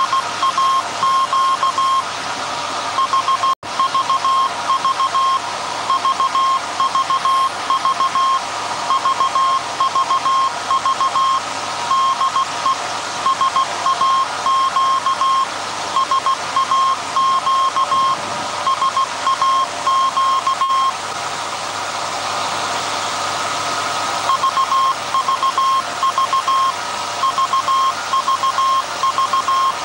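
Morse code from the 1924 Alexanderson alternator transmitter SAQ: a high, steady-pitched beep keyed on and off in dots and dashes, with a short pause in the keying about two-thirds of the way through. The steady hum of the running machinery lies underneath.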